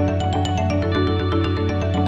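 Background music: a fast run of short struck notes over a sustained bass.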